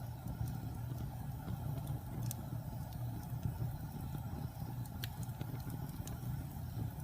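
Wood fire burning in a fireplace: a steady low rumble with a few sharp crackles and pops, the clearest about two seconds in and again about five seconds in.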